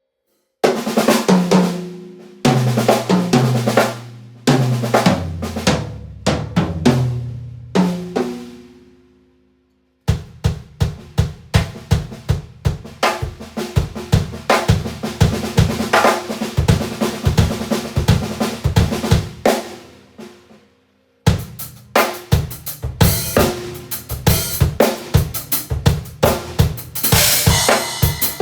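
Acoustic drum kit played raw and unmixed. It opens with ringing tom fills that step lower in pitch, then settles into a steady kick-and-snare beat, drops out briefly about twenty seconds in, and comes back with a beat heavy on crash cymbals near the end.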